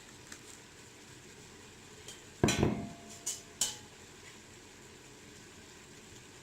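A few knocks and clinks of a kitchen jar and utensils: one loud knock about two and a half seconds in, then two lighter clinks within the next second, over a faint steady hiss.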